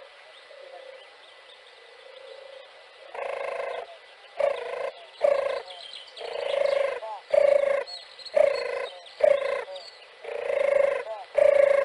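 European turtle dove cooing. After about three seconds of faint background, a run of nine or so coos about one a second follows: pairs of short notes, each pair followed by a longer drawn-out one.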